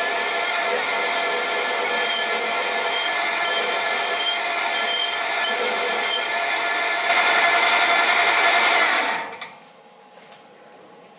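Sieg SC4 mini lathe running under power while its tool cuts a mild steel bar, a steady machine whine with cutting noise, sped up four times. It grows louder about seven seconds in, then the lathe stops about nine seconds in and the sound falls away to a faint background.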